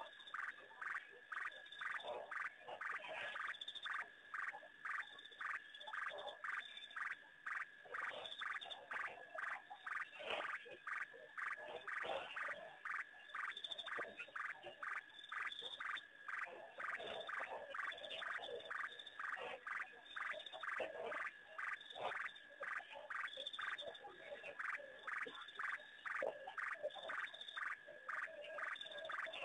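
A chorus of frogs calling: short, evenly repeated calls at about two a second, with other croaking calls overlapping underneath.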